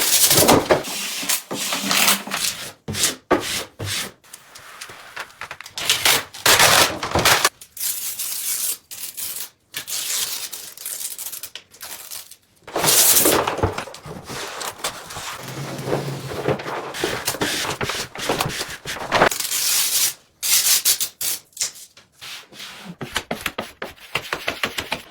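Repeated rubbing and scraping in bursts of a second or two, with sharp clicks and knocks between them, like work on wood or on a fitting.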